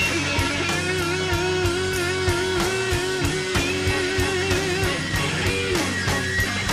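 Fender Stratocaster electric guitar soloing in a slow blues, holding one long bent note with wide vibrato for about five seconds before it bends down and drops away, over bass and drums.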